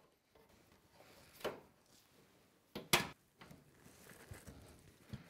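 Quiet handling noises as a rubber fuel hose is pulled through a truck's steel frame rails and brought to a fitting on the fuel tank, rubbing and scraping, with a sharp knock about a second and a half in and a louder double knock about three seconds in.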